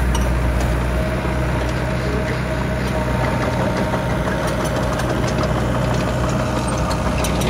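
Diesel engine of a Doosan DH60-7 midi excavator running steadily at a constant pitch, with no revving.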